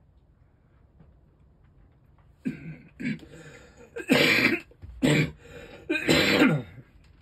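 A person clearing their throat and then coughing: two short rasps, followed by three loud coughs about a second apart.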